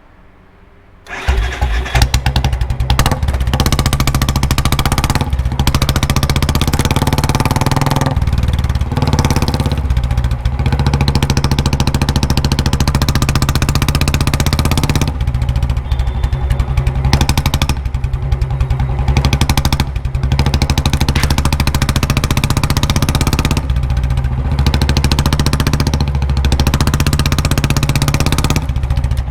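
Royal Enfield Bullet single-cylinder motorcycle engine with a mini Punjab-style aftermarket silencer, starting about a second in and then running loud with a heavy low thump, the throttle blipped and let back several times. The exhaust echoes in a basement.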